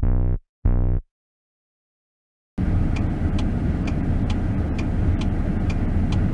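Short deep synth music stabs in the first second, then silence. From about two and a half seconds in, a vehicle's engine idles with a steady low rumble while its turn-signal indicator ticks evenly, a little over two ticks a second.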